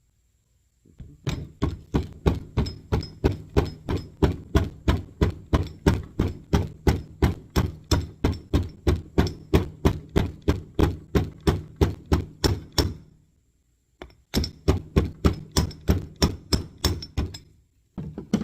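Hammer striking metal in quick, steady blows, about four a second, in a long run, a brief pause, then a shorter run.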